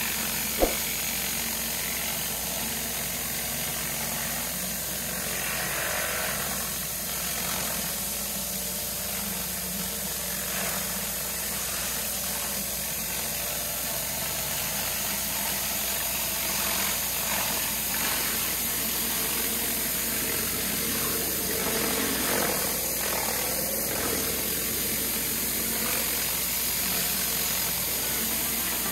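Pressure washer running steadily while cleaning a stone patio, with one sharp click just under a second in.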